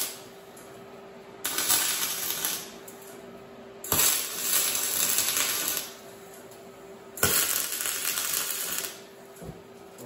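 Arc welding: three tack welds on steel angle iron, each a burst of about one and a half to two seconds with short pauses between.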